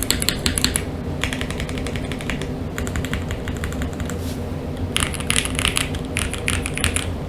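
Typing on a mechanical keyboard with stock 43 Studio OPBlack linear switches, a polycarbonate plate with plate and case foam, and GMK keycaps: quick runs of keystrokes with short pauses, the longest about four seconds in. The switches are JWK-made linears with quiet springs and a subdued sound.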